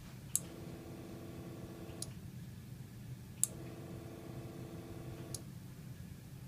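Mojo spinning-wing duck decoy's 6-volt motor switched on and off by remote twice. Each time a sharp click is followed by about two seconds of steady motor whir, then a click as it stops. The decoy is switching reliably at about 20 feet on fresh batteries, which cures its failure to turn off on depleted AAs.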